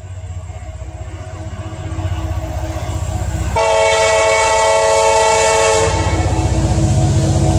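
Approaching diesel locomotive: the low engine rumble grows steadily louder, and about three and a half seconds in it sounds one long blast on a multi-note air horn, a chord lasting a little over two seconds.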